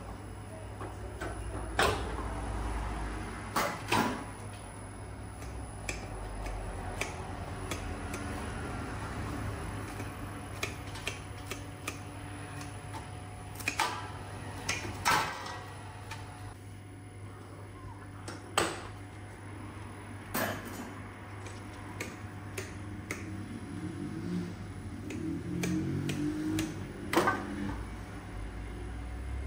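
Occasional sharp knocks and clinks of kitchen work over a steady low hum.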